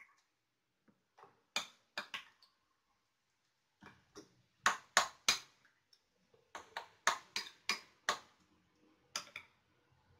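A hand mixing and kneading soft wheat-flour dough in a ceramic bowl, making irregular sharp clicks and taps against the bowl, busiest in the second half.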